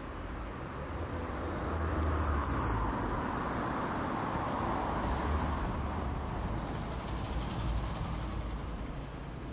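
A passing vehicle's rumbling noise that swells about a second and a half in, holds, and eases off near the end.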